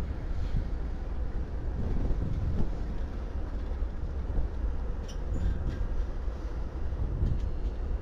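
Diesel-electric freight locomotives, a GE unit closest, running with a steady low rumble as the train crawls past at walking pace and nearly stops. A few faint high clicks come about five seconds in.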